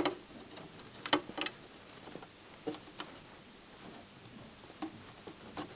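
Scattered light clicks and taps of fingers and a metal pointed tool on a plastic flat-ribbon-cable connector and circuit board while the cable is worked into the connector.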